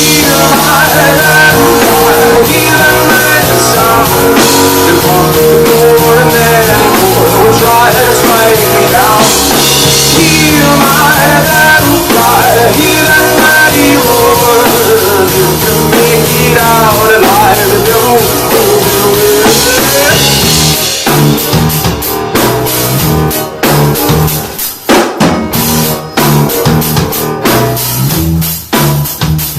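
Rock band playing live at a sound check: drum kit and bass under a gliding lead melody for about twenty seconds. After that the band thins out to mostly drums, with hard hits and short breaks near the end.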